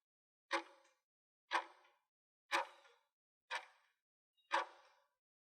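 Ticking-clock countdown timer, five sharp ticks exactly a second apart, each with a short ringing tail.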